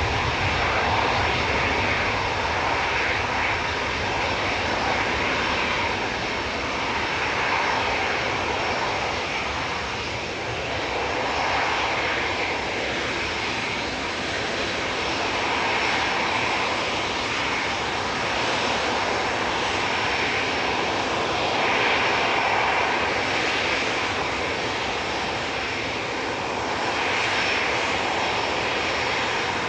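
Boeing 737-8 MAX's CFM LEAP-1B turbofan engines at take-off power as it departs, a continuous jet rush that swells and eases in slow waves; the deepest rumble drops away in the first second.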